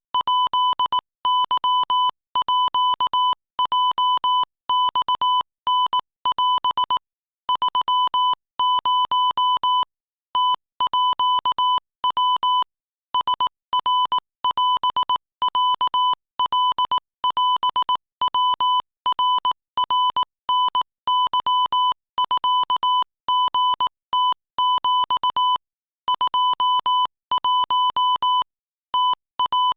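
Morse code sent at 22 words per minute as a single-pitch beeping tone keyed on and off in fast runs of short and long beeps, broken by a few brief pauses between groups.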